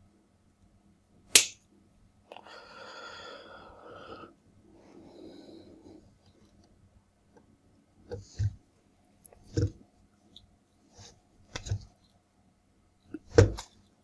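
Hands working electrical wire and plastic magnetic contactor blocks on a tabletop. There is a sharp click about a second in, then a few seconds of scraping and rustling, then several knocks as the contactors are moved and set down.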